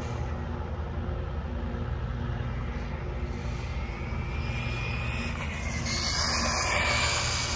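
ZD Racing Thunder B-10E RC buggy running on a 3S battery: a faint electric-motor whine rises in pitch over a steady low rumble. Near the end a louder hiss of motor and tyres on asphalt comes in as the buggy comes closer.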